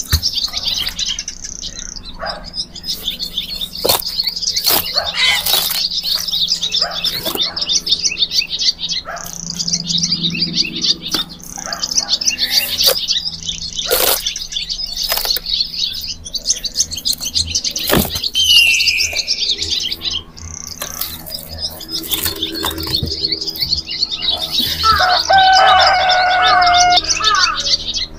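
A flock of small birds chirping busily and continuously, with scattered sharp knocks and thuds of wooden slabs and bark being handled and set down. Near the end a steadier, held tone with overtones joins the chirping.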